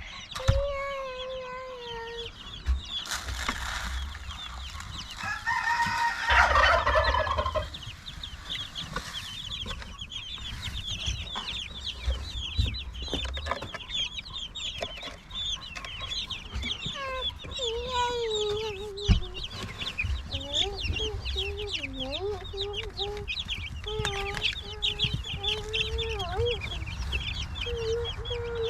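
A flock of chickens peeping and clucking continuously, with a louder, drawn-out crow-like call about six seconds in.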